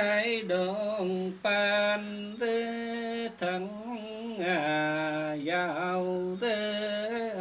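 One voice singing a Nùng đối đáp (call-and-response) folk song without accompaniment: short phrases of long held notes, each sliding down in pitch at its end, with brief breaths between them.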